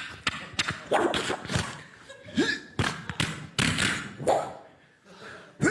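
An irregular series of thumps and knocks, more than a dozen, each dying away quickly.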